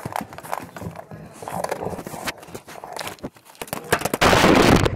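A puppy lapping water from a stainless steel bowl right beside the microphone, in rapid wet laps. About four seconds in, the camera is knocked into the bowl: a loud burst of sloshing and bubbling water right on the microphone.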